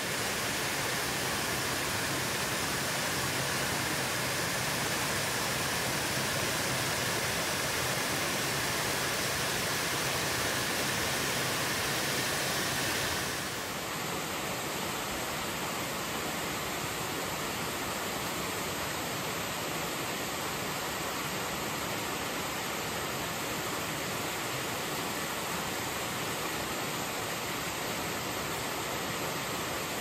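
Small waterfall pouring into a rock pool: a steady rush of falling and splashing water, shifting slightly in tone and dropping a little about halfway through.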